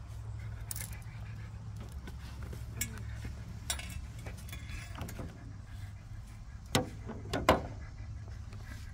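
Scattered light metallic clinks and taps of a landing net and fishing gear being handled on a boat deck, with two sharper knocks about seven seconds in, over a steady low hum.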